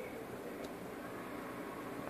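Steady background hiss with no music, and a faint tick just over half a second in.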